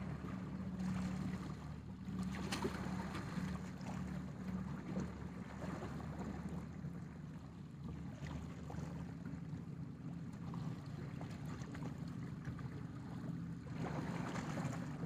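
Steady low engine drone, with light wind noise on the microphone.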